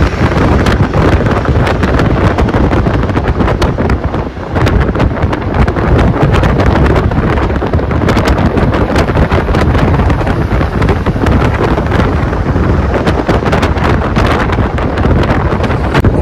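Wind buffeting the microphone of a camera in a moving car, with the car's running noise underneath: a loud, steady low rumble with crackling gusts that dips briefly about four seconds in.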